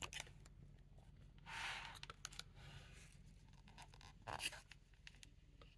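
Faint rustling and scraping of a book's paper pages being handled, with a few soft clicks, over near silence.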